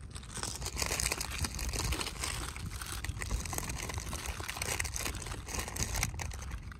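A snack wrapper crinkling as it is handled and torn open, with many small irregular crackles.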